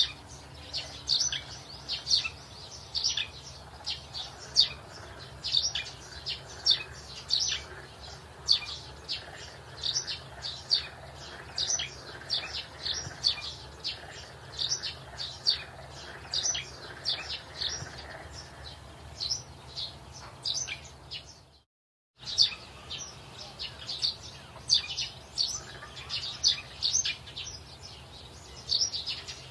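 Small birds chirping steadily, short high notes at about two a second. The sound cuts out for a moment about three-quarters of the way through.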